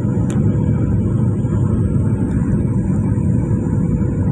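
Steady cabin noise of a Boeing 737-800 on final approach, heard from a seat beside the wing: a low rumble of the CFM56-7B turbofans and airflow, with a faint steady hum above it.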